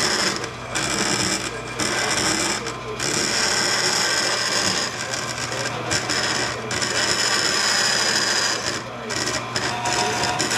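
Vertical bandsaw running, its blade cutting an aluminum bracket in a steady, hissing rasp over the motor's hum, with several brief drops in the cutting noise.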